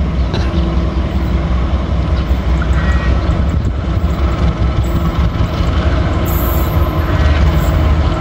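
Diesel-electric locomotive hauling a passenger train as it approaches, its engine running with a steady low rumble that grows louder near the end.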